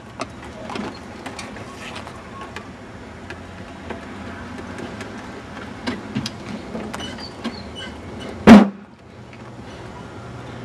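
Scattered light clicks and knocks over a steady low hum, with one loud sharp thump about eight and a half seconds in.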